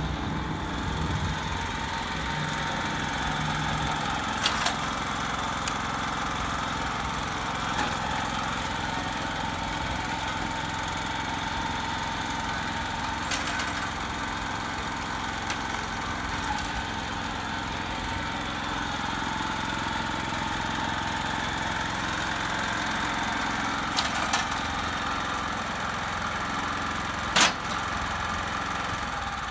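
Mitsubishi MyBoy MMR60 tiller's small engine running steadily, with a few sharp clicks over it; the loudest click comes near the end.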